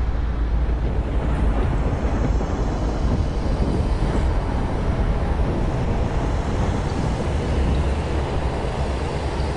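Deep, steady rumbling drone of a horror film's sound design, an even noisy roar with no clear pitch or rhythm.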